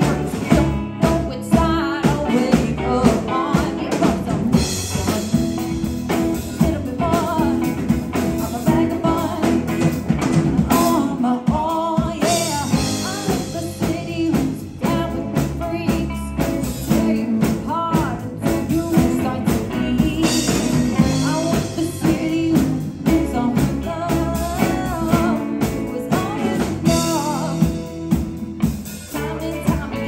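Live rock band playing: a woman sings lead over two electric guitars, electric bass and a drum kit.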